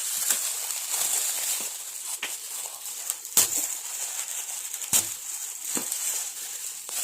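Gift packaging being torn and crumpled open by hand: a steady crackly rustle, with a few sharp snaps around the middle.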